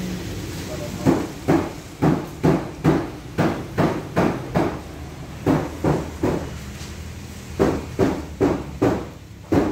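Repeated hammer blows, about two a second, starting about a second in, with a short pause past the middle before the blows resume.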